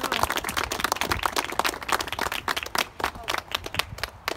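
An audience applauding. The clapping thins out to a few scattered last claps near the end.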